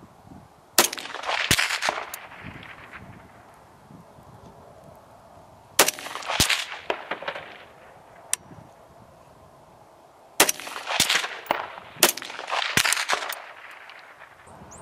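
Rifle shots from an SKS and an AR-15 fired from a truck bed, each sharp crack trailed by a rolling echo. The shots come in three clusters: about a second in, around six seconds, and a run of several between ten and thirteen seconds.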